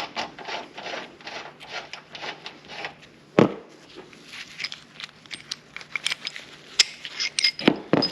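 Hand tools and metal parts being worked while the Enduro joint rebuild tool is taken off the joint. About three seconds of quick, repeated scraping strokes, then a sharp knock, then scattered light metallic clicks and clinks.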